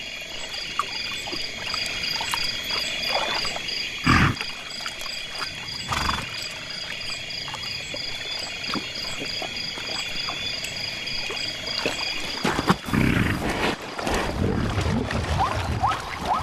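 A night chorus of insects and frogs, steady and high, with one pulsing trill, and a couple of short knocks about four and six seconds in. Near the end a sudden, loud scuffle breaks out, with growls and calls, as a lion attacks zebras at the waterhole.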